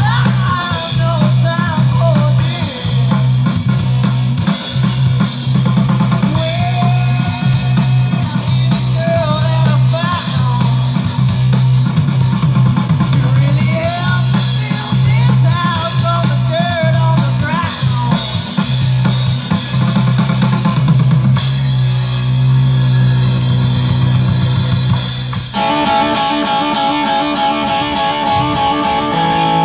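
Live rock band playing through a stage PA: electric guitars over a drum kit with cymbals. In the last few seconds the drumming stops and the guitars hold sustained notes.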